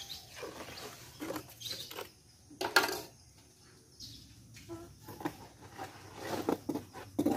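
Wet cement mortar being spread and pressed into a sheet-metal mold by trowel and hand, with scattered scrapes and knocks, the loudest about three seconds in and several more close together near the end.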